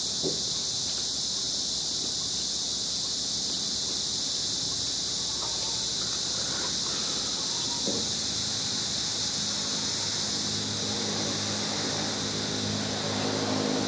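Steady, high-pitched chorus of insects droning without a break. From about eight seconds in, a low steady hum joins underneath and grows a little louder toward the end.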